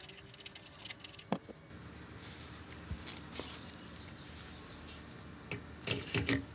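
Handling clicks and taps of metal radiator parts, then a cluster of knocks near the end as a plastic radiator fan shroud is set down onto an aluminum radiator.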